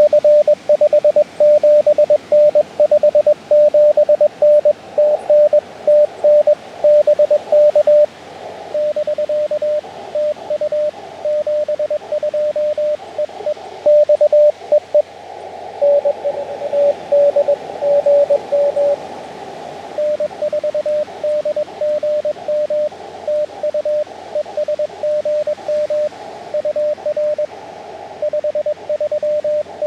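Morse code (CW) tones from an Elecraft KX2 ham radio transceiver: one steady mid-pitched beep keyed on and off in dots and dashes. It is louder for the first eight seconds and quieter after that, with band hiss swelling in the gaps between characters.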